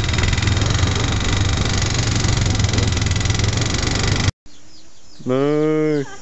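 Quad bike engine running under way, heard from the rider's own ATV, for about four seconds, then cut off abruptly. Near the end a cow gives one short low moo, with birds chirping faintly.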